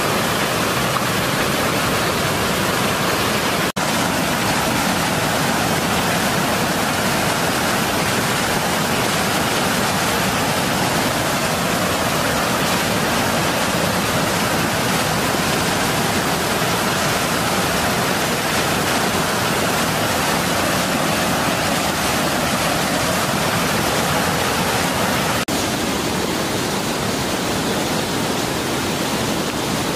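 Flood-swollen river water rushing over a low dam spillway and churning white below it: a loud, steady rush of water.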